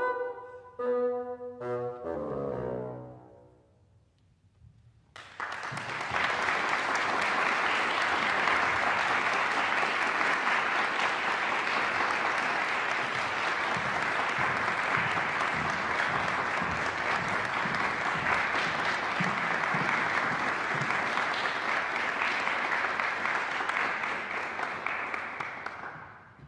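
Solo bassoon playing its last few short notes, ending the piece. After a couple of seconds of quiet, an audience applauds steadily, fading out near the end.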